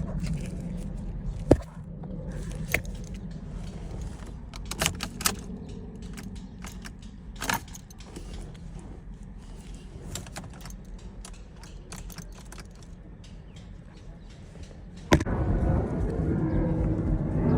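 Scattered sharp clicks and key clinks over a low background. About fifteen seconds in, a louder steady rumble sets in suddenly and keeps going.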